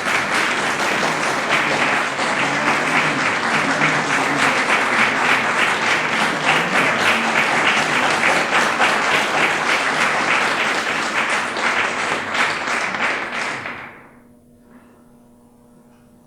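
Audience applauding steadily for about fourteen seconds, then dying away quickly near the end, leaving a faint hum.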